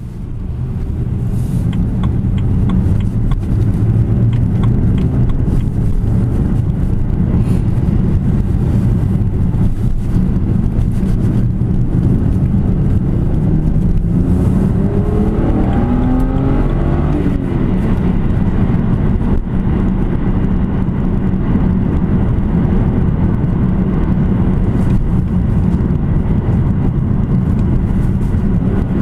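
2007 BMW 330i (E92) on its stock exhaust, its 3.0-litre straight-six running steadily, with the pitch rising and falling again about halfway through.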